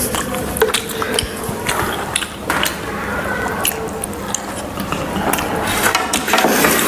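Close-miked eating: crunching and chewing of crisp puchka, hollow fried puri shells, as a run of many short sharp crackles.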